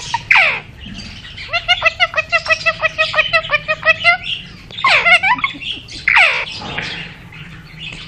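Indian ringneck parakeet calling: a sharp falling screech just after the start, then a fast run of short, evenly pitched notes for about three seconds, then two more falling screeches near the end.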